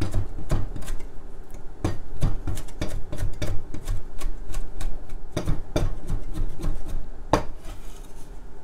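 Chinese cleaver chopping garlic and fermented black beans together on a round wooden cutting board: a quick, irregular run of knocks of the blade on the wood, the loudest chop about seven seconds in.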